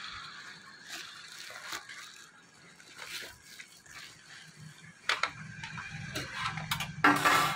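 Cardboard and bubble-wrap packaging rustling and crackling in scattered bursts as an electric madhani churner is unpacked by hand, with one louder crinkle near the end. A low hum comes in about five seconds in.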